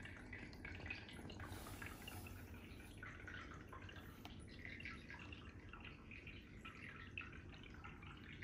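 Faint aquarium water sounds heard from underwater: a steady low rumble with many small irregular ticks of bubbles and moving water.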